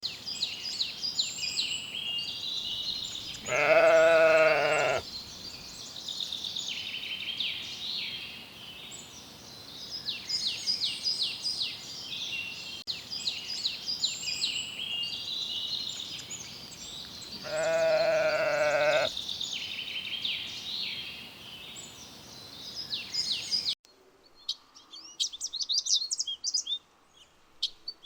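A sheep bleats twice, each one long, wavering call about a second and a half, roughly fourteen seconds apart. Small birds chirp and sing steadily throughout.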